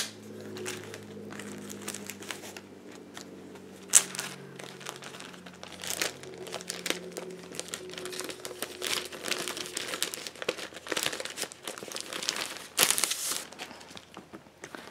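Clear plastic sleeve crinkling and rustling in the hands as sticker sheets are handled and slid out, in irregular crackles, with a sharper click about four seconds in and a denser burst of crinkling near the end.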